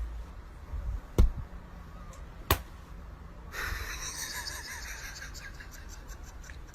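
Three sharp knocks over the first few seconds, the first the loudest, then a soft rustling noise from about halfway through.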